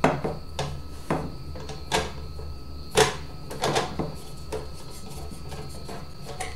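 Screws being taken out of a DVD player's casing with a screwdriver: scattered light clicks and taps of the tool and metal parts at uneven intervals, the sharpest about three seconds in, over a steady low hum.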